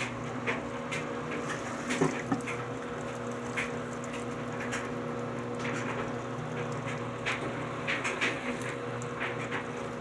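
Basement washing machine running, a steady hum over an even hiss, with scattered light taps and clicks.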